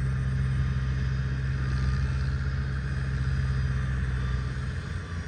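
Diesel engine of farm machinery running steadily at a low, even drone, which drops away near the end.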